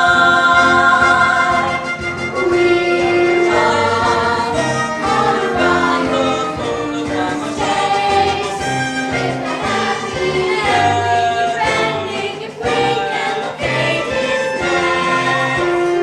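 A young cast singing a musical-theatre number together in chorus over an accompaniment, with long held notes that change pitch every second or so.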